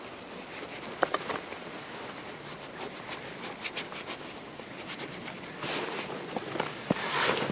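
Handling of a leather axe sheath as its strap is worked loose: a few sharp clicks about a second in, light ticks and leather rubbing, then a louder rustle of jacket fabric and leather near the end.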